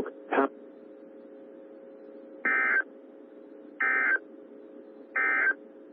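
Three short, identical buzzy data squawks about 1.3 seconds apart: the Emergency Alert System (SAME) end-of-message code sent by NOAA Weather Radio to close the warning broadcast. A faint steady hum runs underneath.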